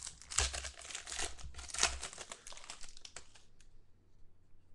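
Trading card pack wrapper being torn open and crinkled by hand: a run of crackling crinkles for about three seconds that trails off into a few faint ticks.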